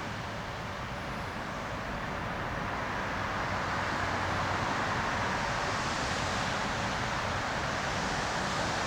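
Steady rush of road traffic noise, swelling a little through the middle.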